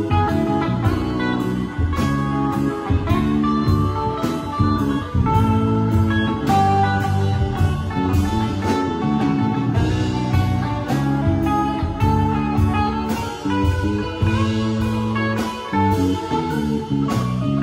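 Live rock band playing an instrumental passage: electric guitar prominent over bass, drums and keyboard.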